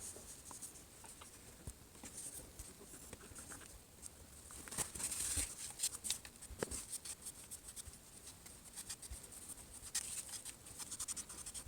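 Faint rubbing and scattered small clicks of a cloth wiping the phone's frame clean with alcohol, with louder stretches of rubbing about five and ten seconds in.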